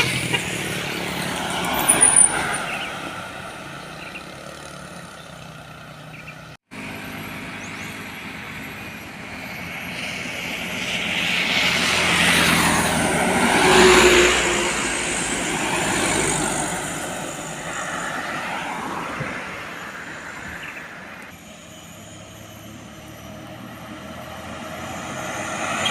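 Heavy road traffic, mainly trucks, passing close by. One vehicle's noise builds to its loudest about fourteen seconds in and then falls away as its pitch drops. The sound cuts out for an instant about six and a half seconds in.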